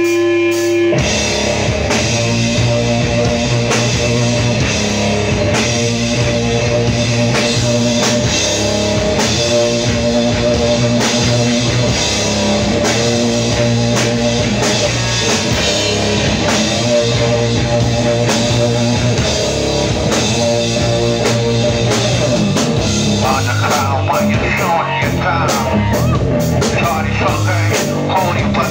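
Live rock band playing loudly: electric guitars, bass guitar and a drum kit. A single held note gives way to the full band about a second in.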